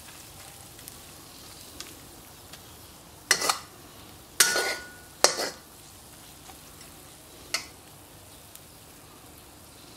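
A metal spoon scraping and stirring eggs and vegetables in a wok over a steady low sizzle of frying. There are four sharp scrapes of metal against the pan, one with a brief metallic ring.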